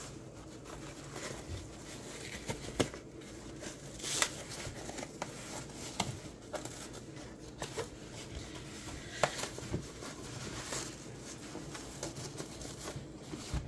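Fabric roll-up tool pouch being handled as its straps are wrapped around it and fastened: rustling cloth with scattered light clicks and taps.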